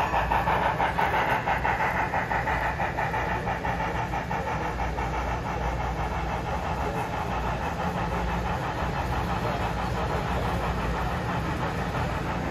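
HO scale model steam locomotive chuffing in an even rhythm of about four beats a second as it pulls passenger coaches along the track, growing a little fainter over the first few seconds as the engine moves off, with the coaches rolling on the rails.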